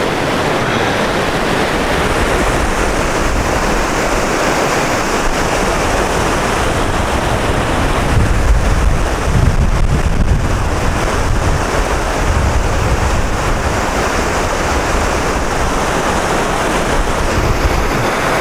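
Whitewater river running high, rushing steadily over rocks. Wind buffets the microphone, most heavily around the middle.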